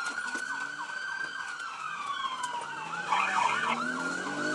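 Police car sirens: one wailing in a slow sweep that falls and rises again, overlapped by another yelping in fast short warbles.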